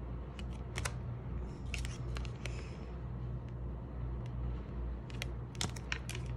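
Glossy Golden Universal Tarot cards being handled one after another: scattered light clicks and a brief soft swish as a card is moved to show the next, over a steady low hum.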